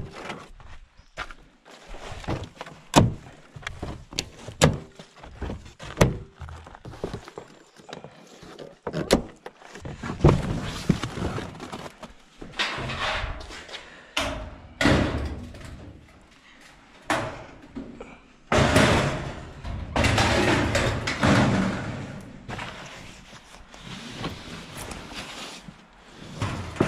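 Overhead garage door parts being handled and moved: a run of sharp knocks and thunks, then longer stretches of scraping and rustling from about ten seconds in.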